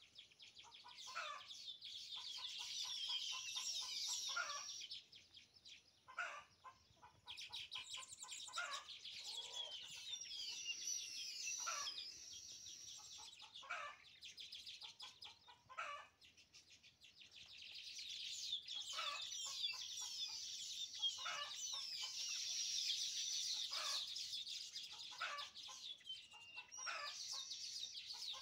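Baya weaver birds chattering and singing together: a dense run of high, wheezy, gliding notes over rapid clicking chatter and sharp chirps. The chorus comes in long stretches with two quieter gaps, one a few seconds in and one about halfway through.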